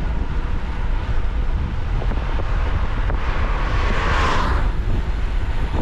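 Wind buffeting the microphone while riding a gravel bike, a steady low rumble, with a louder rushing swell about three seconds in that fades before the end.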